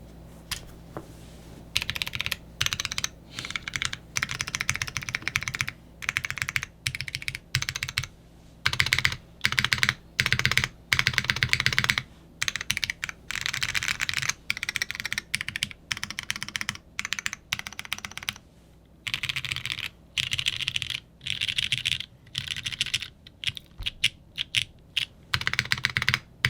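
Typing on a custom polycarbonate Bakeneko60 mechanical keyboard with a carbon fibre half plate, lubed Cherry MX Brown tactile switches and GMK keycaps. The keystrokes come in quick bursts separated by short pauses, starting about two seconds in. The builder says the lubed switches still tick slightly.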